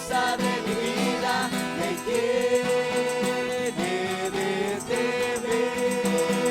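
Christian worship music: a slow melody of long held notes over a steady accompaniment.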